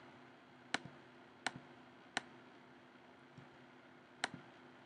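Four sharp clicks of a computer mouse: three in quick succession about three-quarters of a second apart, then one more near the end, over a faint steady hum.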